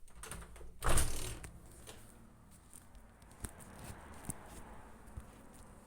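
Rustling of the recording device being handled, loudest about a second in, then a steady low hum with a few scattered clicks: the constant noise that sits on top of the night traffic noise.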